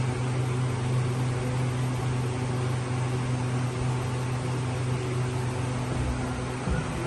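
Steady low machine hum with a few fainter higher tones over a light hiss, unchanging throughout.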